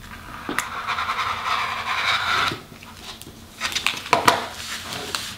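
Rotary cutter slicing through folded vinyl-laminated cotton fabric on a cutting mat: one steady cut about two seconds long, then after a pause shorter cuts with a sharp click about four seconds in.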